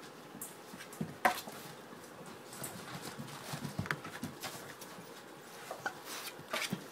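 Labrador puppies moving about in and around a plastic wastebasket on a vinyl floor: scattered scuffs, claw clicks and small knocks against the plastic, the loudest a sharp knock about a second in.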